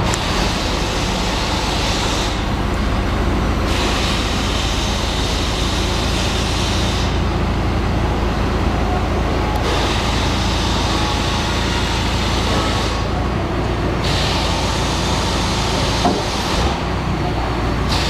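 A backhoe loader's diesel engine running steadily while the backhoe arm and bucket are worked, with a hydraulic hiss that comes and goes in spells of a few seconds as the arm moves. A short knock about sixteen seconds in.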